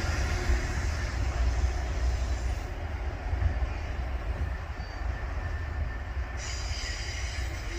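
Freight train rolling past with a heavy, low rumble of wheels on rail, slowly fading. A faint high-pitched squeal of wheels joins near the end.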